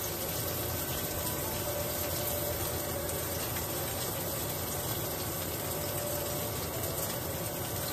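Ribeye steak sizzling steadily in a very hot pan as it sears.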